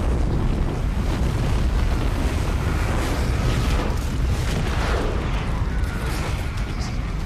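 Avalanche sound effect: a deep, continuous rumble of snow pouring down the mountainside.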